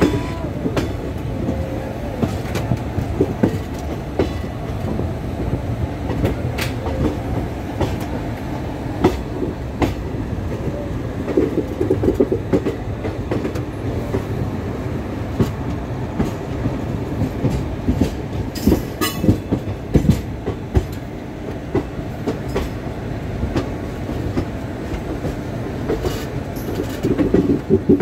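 Passenger train running along the track, heard from aboard: a steady rumble of the coach wheels on the rails with a clickety-clack of knocks, in thicker clusters a little under halfway and near the end.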